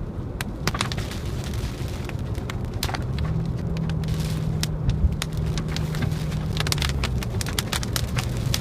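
Car cabin drone of engine and tyres on a wet road, the engine note rising a little in the middle and settling back, with irregular sharp ticks of raindrops striking the windshield and roof.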